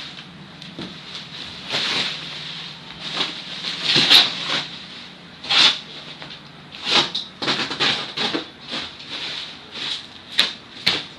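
Cardboard box and packaging of an exercise bike being opened and handled: an irregular run of scraping, rustling swishes with a few sharp clicks, two of them near the end.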